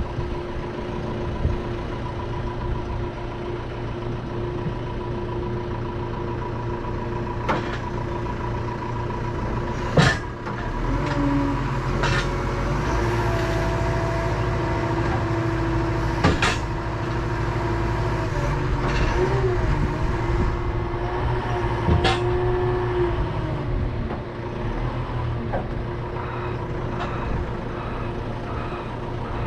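Truck engine idling steadily, with several sharp metallic knocks and clanks scattered through. Through the middle, a whine rises and falls in pitch over the drone.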